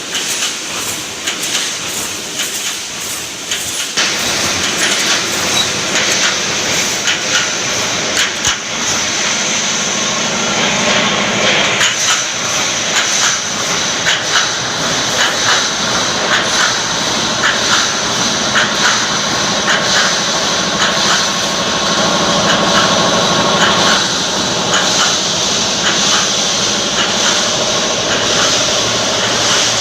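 Automatic wire mesh welding machine running, with a rapid, uneven clatter of repeated knocks over a steady machine noise. It gets louder about four seconds in.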